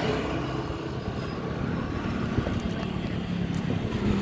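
Road traffic: motor vehicle engines running steadily, with a low hum.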